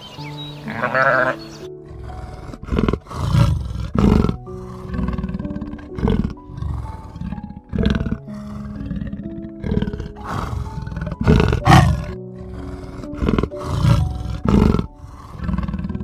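Loud animal roars, about a dozen short ones at irregular intervals, over steady background music. A short wavering bleat comes just before the roars begin, about a second in.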